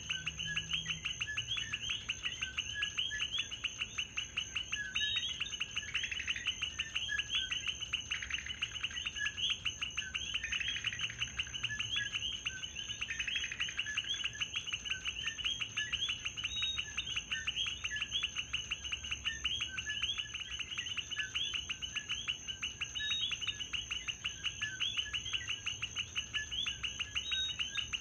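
A dense night chorus of coquí frogs, many short rising chirps overlapping without pause. A steady high-pitched tone runs underneath.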